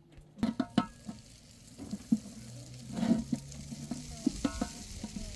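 Cooked rice being scooped and scraped out of a metal cooking pot into a metal tray, with the pot and tray knocking together in ringing metallic clanks, the sharpest about half a second in and again near four and a half seconds.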